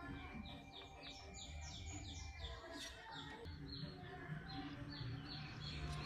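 A small bird chirping in a rapid series of short high notes, several a second, over faint background music.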